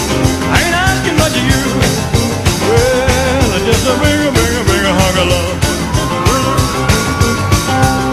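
Upbeat rock-and-roll music with a steady driving beat.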